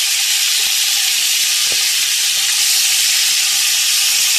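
Raw cubed chicken sizzling steadily in hot oil in a pot, with a spatula stirring through it.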